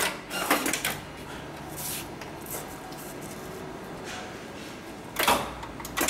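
Automatic pattern sewing machine for attaching tags, paused between stitching cycles: a few sharp clunks and clicks from its mechanism over a low steady hum, two near the start and a louder one near the end.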